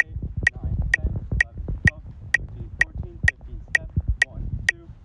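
Metronome clicking steadily, about two clicks a second, with an alto saxophone playing faint short notes over the beat and a low rumble underneath.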